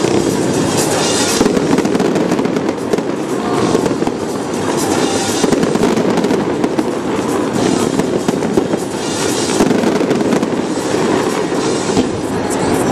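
A fireworks display: aerial shells bursting one after another and crackling densely, with no pause. Dance music plays underneath.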